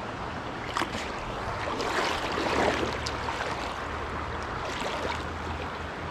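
Shallow trout stream flowing and gurgling over a riffle, with a few sharp clicks and a louder swell of water sound about two and a half seconds in.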